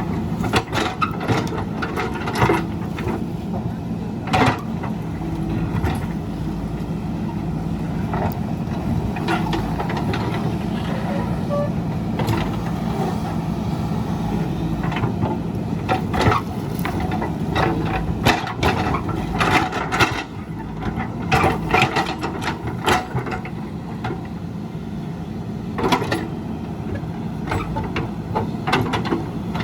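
Diesel engine of a JCB backhoe loader running steadily under working load, with irregular sharp knocks and clanks from digging, coming in clusters.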